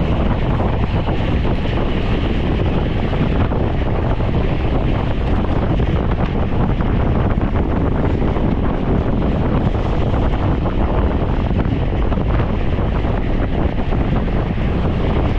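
Steady wind rushing over a camera microphone carried on a bicycle at racing speed in a criterium.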